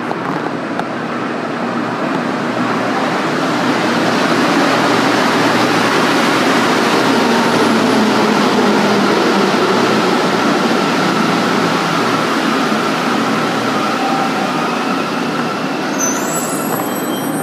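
Metro train pulling into an underground station: a steady rushing rumble that builds over the first few seconds and then slowly eases as the train slows. A brief high-pitched squeal comes near the end as it stops.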